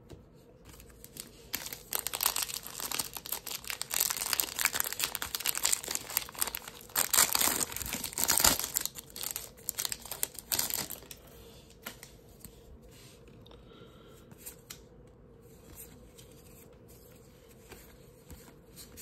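A trading-card pack's paper wrapper being torn open and crinkled by hand, a crackling, tearing rustle in bursts for several seconds. After that come only faint ticks and shuffles of the cards being handled.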